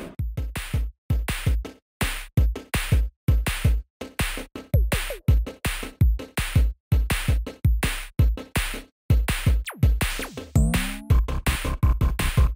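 Electronic music with a punchy drum-machine beat: short, hard-cut hits in a steady rhythm, with a few falling synth glides over them.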